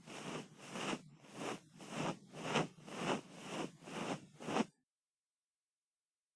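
Ear-cleaning strokes against a microphone's ear: rhythmic scraping and rubbing, about two strokes a second, that stop abruptly about three-quarters of the way through.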